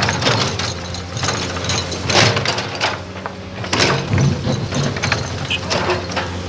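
Doosan crawler excavator's diesel engine working under load with a steady hum, while its bucket digs into earth and rock, giving several rough scraping crunches a couple of seconds apart.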